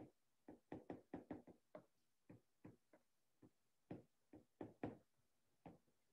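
Faint, irregular taps and clicks of a stylus tip on a tablet's glass screen during handwriting, some fifteen to twenty short strikes.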